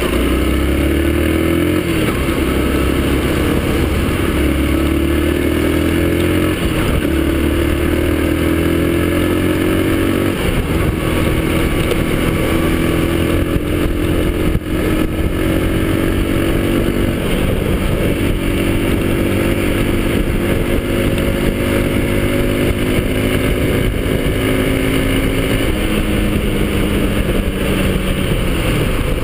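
Yamaha XTZ-125's single-cylinder four-stroke engine running under way; its pitch climbs in steps through the first ten seconds, as the bike accelerates through the gears, then holds fairly steady and falls near the end.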